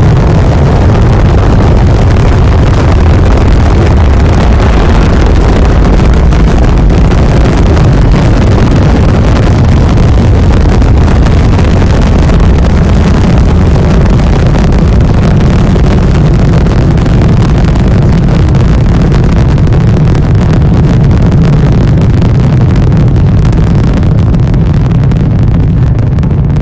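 Space Shuttle launch: the solid rocket boosters and main engines running at full thrust, a loud, steady noise heaviest in the deep low end. It eases slightly near the end.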